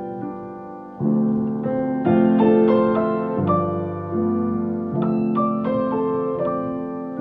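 Solo piano playing a slow passage of sustained chords under a melody line, with a new chord struck about every second or so and each one left to ring and fade.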